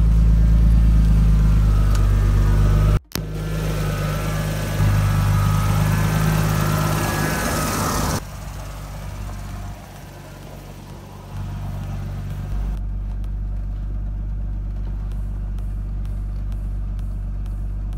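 Turbocharged Nissan Skyline engine idling, a steady low exhaust note, heard first at the tailpipe and later from inside the cabin. The sound breaks off suddenly about three seconds in and changes in level near eight and again near twelve seconds.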